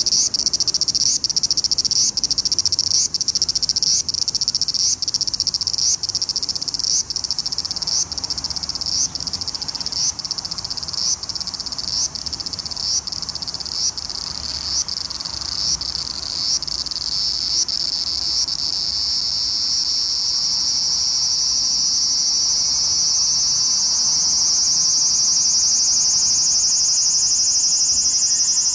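Large brown cicada (aburazemi) singing at close range: a high buzz pulsing about once a second, which after about two-thirds of the way runs together into one steady, continuous buzz.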